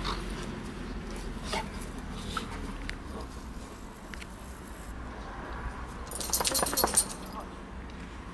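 A corgi and a husky-type dog at rough play: scuffling with a few scattered light knocks, then a quick rattle of sharp clicks about six seconds in, the loudest moment.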